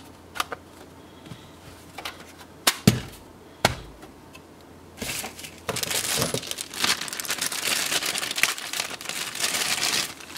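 A few knocks as a thin client's case is turned onto its side and set down on a desk, the loudest two about three seconds in. From about five seconds in, plastic packaging crinkling steadily as it is handled.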